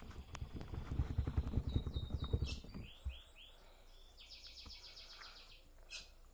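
Shampoo-and-toothpaste slime being stirred on a tabletop: fast, wet clicking for about three seconds. A bird chirps a few times, then gives a rapid trill of about a second and a half near the end.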